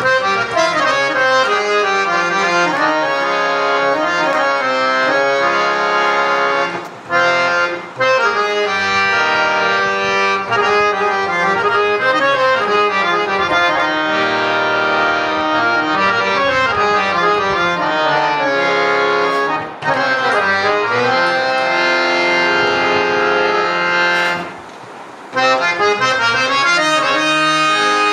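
Hand-pumped Indian harmonium with male and female reed sets, a melody played on its keys with a steady reedy tone. It breaks off briefly a few times.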